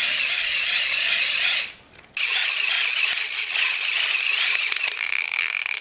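Plastic gear train of a toy helicopter being hand-cranked hard, spinning its small motor as a generator under a heavy load: a fast, rattling whir that stops briefly about two seconds in and then starts again. The cheap plastic gears are being stripped by the strain.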